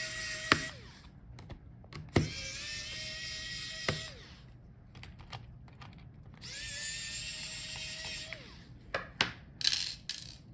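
Small electric screwdriver whirring in short runs of about two seconds, backing out the screws that hold a laptop motherboard. The first run stops just after the start, the next starts about two seconds in, and the last about six and a half seconds in. Each run winds down in pitch as it stops, and a few light clicks follow near the end.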